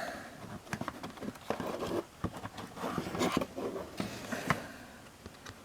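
Trading card box and packaging being opened and handled by hand: scattered light clicks, scrapes and rustles of cardboard and paper, busiest in the middle and dying down near the end.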